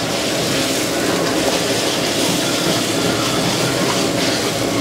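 A metal ladle scraping and stirring onion and ginger-garlic masala frying in oil in an iron kadai, with steady sizzling and a fast, continuous rattle of metal on metal. The masala is being fried well so that the oil comes out of it.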